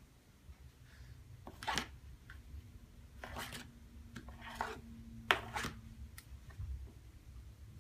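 A comb drawn through a toy horse's mane in about four short brushing strokes.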